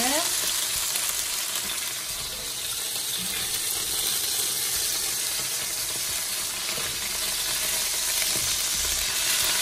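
Chicken pieces sizzling steadily in a hot frying pan.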